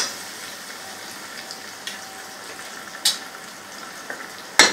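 Tomato, yogurt and oil curry base sizzling gently in a pot as it is stirred with a spoon. A few short knocks of the spoon on the pot, the loudest near the end.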